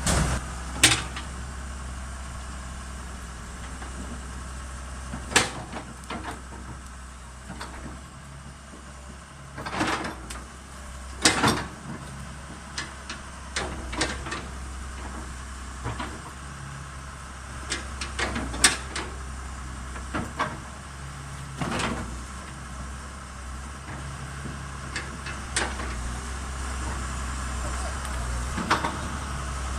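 Komatsu PC200-7 excavator's diesel engine idling with a steady low hum, with about a dozen sharp knocks and clacks scattered over it.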